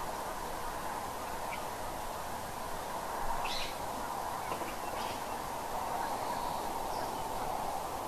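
A few short, high animal calls over a steady background din, the clearest one about three and a half seconds in.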